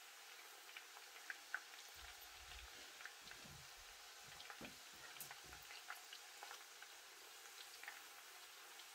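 Plantain strips deep-frying in hot oil in a pot: a faint, steady sizzle with many small scattered pops and crackles.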